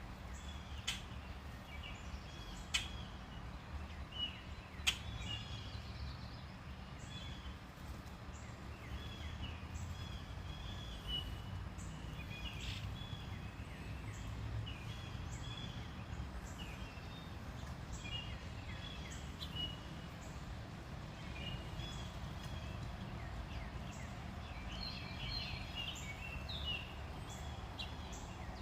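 Backyard songbirds chirping and calling over and over around a feeder, busiest near the end, over a steady low rumble. Three sharp clicks in the first five seconds.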